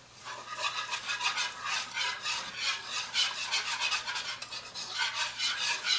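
A whisk stirring a thin pan sauce in a skillet: a steady scraping at about three strokes a second.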